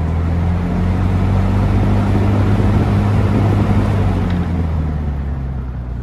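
Lakewood P-23 20-inch box fan running, a steady rush of air over a low motor hum. The sound fades over the last couple of seconds.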